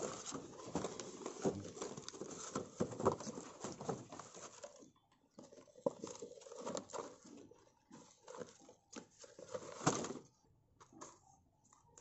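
Paper and cardboard packaging of a twelve-shot firework cake being unfolded and pulled open by hand: rustling and crinkling with small taps and scrapes, busy for the first few seconds and then sparser and more broken up.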